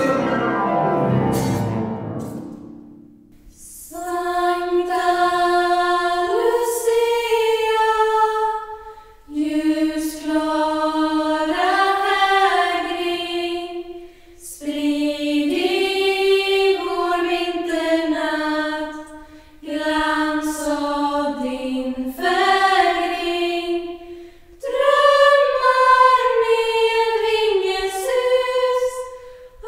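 A band's last chord, with cello and guitar, rings out and fades over the first three seconds. Then a female Lucia choir sings a cappella in unison, in phrases of about five seconds with short breaths between them.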